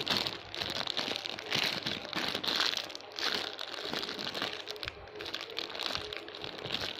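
Plastic packaging crinkling and rustling in the hands, in irregular bursts.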